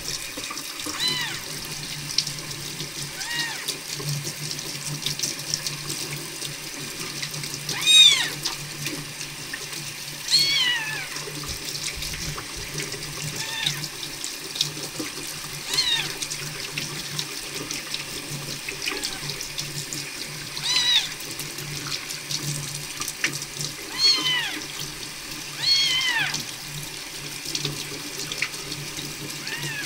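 A tap running into a sink while a young kitten held under the water mews, about ten short, high mews spaced a couple of seconds apart, the loudest about eight seconds in.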